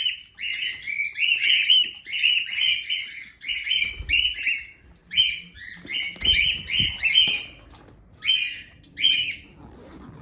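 Cockatiel calling in a rapid string of short, loud chirps, about two to three a second, growing sparser near the end. A few soft low thumps come in the middle.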